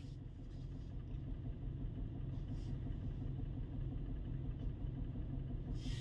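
Mercedes-AMG GT 63 S's twin-turbo V8 idling steadily at about 690 rpm, its sound sitting low in pitch. The engine has a misfire logged on cylinder 4, which the mechanic puts down to a faulty fuel injector.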